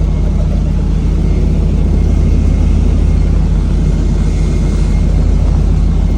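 Helicopter running, heard from inside the cabin: a loud, steady low drone of rotor and engine with a faint thin whine above it.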